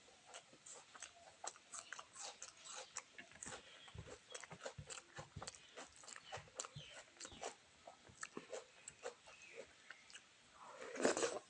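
Close-miked mouth sounds of a person eating rice and fish: wet chewing and lip-smacking clicks, several a second. Near the end comes a louder breathy sound lasting about half a second.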